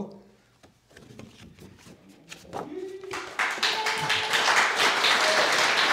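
Audience clapping: a few scattered claps about a second in, building by about three seconds into steady applause, with a few voices calling out over it.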